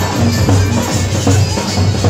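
Loud procession music: a heavy, repeating low drum beat with a wavering melody over it.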